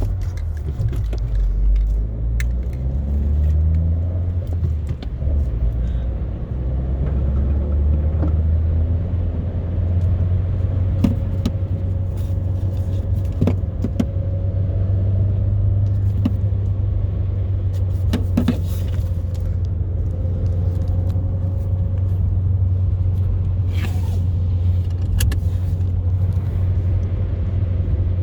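Car engine and road rumble heard from inside the cabin while driving, a steady low drone that shifts in pitch over the first several seconds and then settles. A few sharp clicks or knocks come through along the way.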